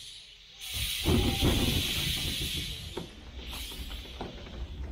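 Narrow-gauge steam locomotive hissing steam, growing louder just under a second in, with a low rumble and a few knocks from the train.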